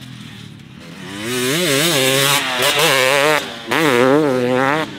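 Husqvarna TC 250 single-cylinder two-stroke dirt bike engine revving hard, its pitch wavering up and down with the throttle. It gets loud about a second in and drops off briefly about three and a half seconds in before pulling again.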